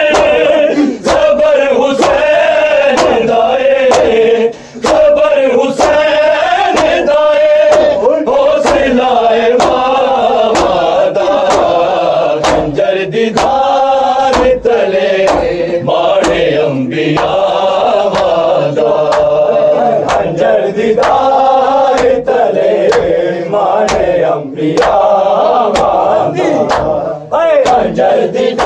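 A group of men chanting a mourning lament (noha) in Urdu, with long sung notes rising and falling. Under the chant runs a steady beat of sharp strikes, a little faster than one a second.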